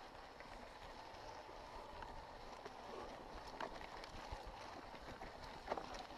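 Mountain bike ridden over a stony dirt trail: a steady rush of tyre and trail noise with scattered clicks and knocks from the bike over stones, and a sharper knock near the end.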